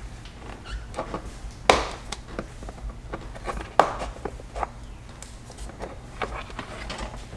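Plastic trim tool and fingers tucking a dashcam cable into the edge of a pickup's headliner: light scrapes and clicks, with two sharper knocks, one a little under two seconds in and one about four seconds in.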